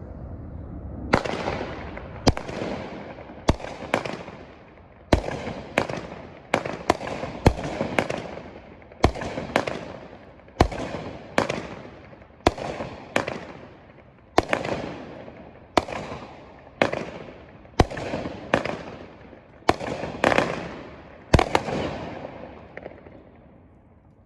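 A 200-gram 16-shot fireworks cake (Pyro Demon's Blazing Pyro) firing: a rapid series of sharp shots starting about a second in, each followed by crackling that trails off, the bursts being red and blue palms with a crackling gold pistil and glitter. The shots stop and the crackle dies away near the end.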